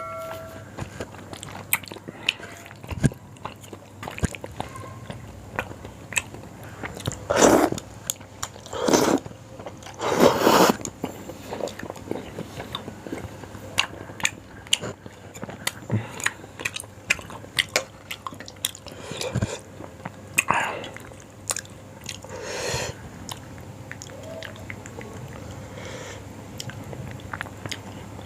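Close-up eating of yong tau foo: chewing and biting with many small wet mouth clicks and smacks, and a few louder, longer mouth sounds about a third of the way in and again later.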